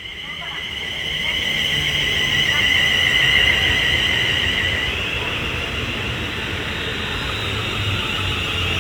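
Class 350 Desiro electric multiple unit coming into the platform, its wheels rumbling under a steady high-pitched two-note squeal. The sound grows louder over the first few seconds as the train draws in.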